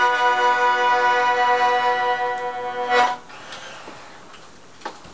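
Hohner Pokerwork two-row diatonic button accordion in A/D holding the final chord of the tune with a slight waver, which ends sharply about three seconds in. A couple of faint clicks follow near the end.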